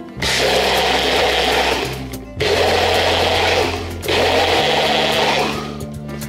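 Bullet-style personal blender running in three bursts of about a second and a half each, blending a liquid mixture, with short breaks between them. Background music plays underneath.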